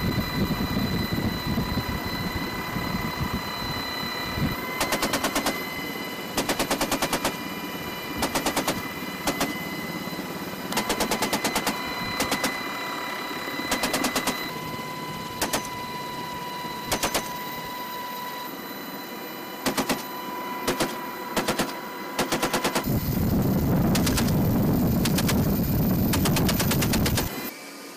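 A GAU-18 .50-calibre machine gun, door-mounted on an HH-60 Pave Hawk helicopter, firing a series of short bursts, roughly a dozen, over the helicopter's steady cabin noise.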